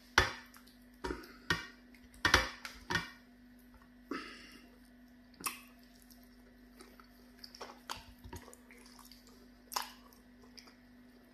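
Close-up wet eating sounds of pounded yam fufu and vegetable soup eaten by hand: lip smacks, chewing and squelches of soft dough and soup, in short irregular bursts that come thickest and loudest in the first three seconds.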